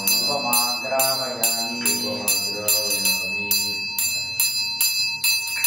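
Brass puja hand bell (ghanta) rung steadily, about two strokes a second, its bright ring sustained between strokes. A low voice chants softly underneath during the first half.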